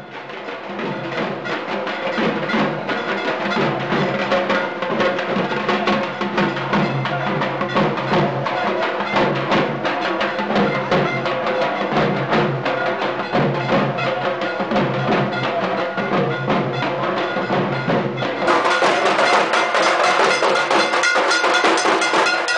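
Dhak drums beaten with sticks in a fast, steady rhythm, with metallic ringing underneath. The sound fades in at the start and is louder from about eighteen seconds in.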